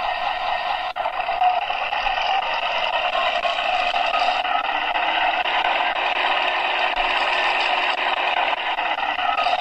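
Tank engine sound effect played back through the small speaker of an RC tank sound card, running continuously and thin, with little low end; it breaks off briefly about a second in and then carries on.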